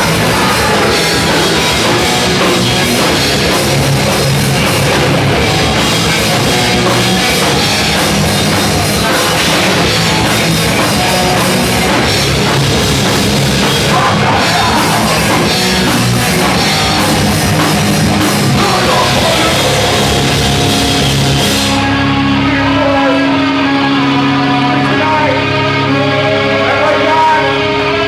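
Loud heavy rock music with drums and distorted guitars; about 22 s in, the drums and cymbals drop out, leaving held guitar notes.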